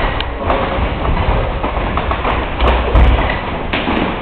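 Dull thuds of kicks and punches landing and feet on the ring canvas during kickboxing sparring, a few thumps over a steady hiss of room noise.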